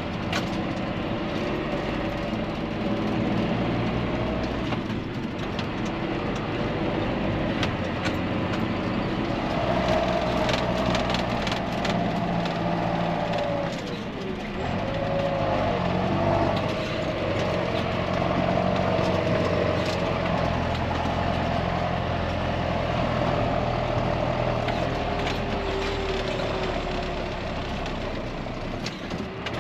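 John Deere 6430 tractor's diesel engine running steadily under way with a loaded tandem tipper trailer, with a whine that dips in pitch and rises again about halfway through, and light rattles.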